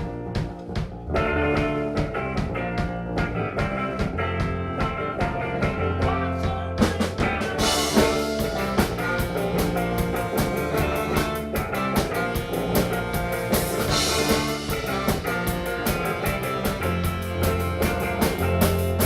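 Live rock band playing an instrumental passage, with guitar, bass and drum kit keeping a steady beat; the cymbals come in brighter about eight seconds in.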